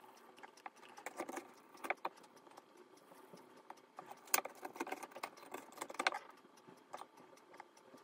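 Hands scraping loose sesame seed mixture around a stainless steel pot: scattered light clicks, rattles and scrapes of fingers on metal, with louder bursts about a second in, near the middle and around six seconds.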